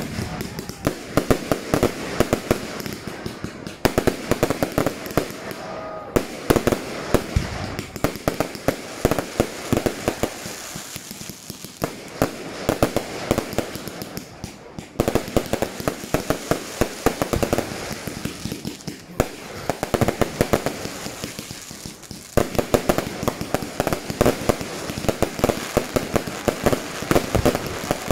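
Fireworks going off in a dense, rapid string of bangs and crackles. It thins out briefly a few times before picking up again.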